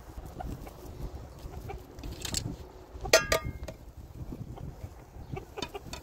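Chickens clucking: a few short calls, the loudest about three seconds in.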